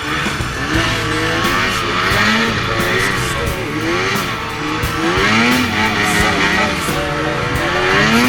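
Snowmobile engine revving up and down repeatedly as the sled is ridden, its pitch rising and falling every second or two over a steady hiss.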